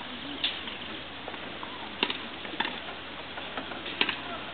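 Tennis balls struck by racquets: four short, sharp pops spread across a few seconds, the last the loudest, over a low outdoor murmur.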